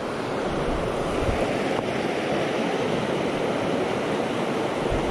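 River water rushing over a shallow rocky riffle, a steady rushing noise.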